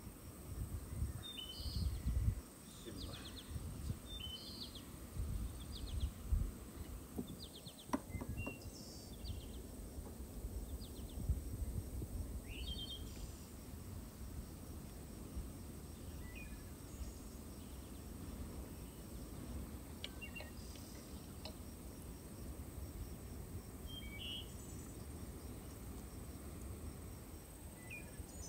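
Outdoor ambience of small birds chirping in short, scattered calls over a steady high-pitched insect trill, with a low rumble in the first half and a single light knock about eight seconds in.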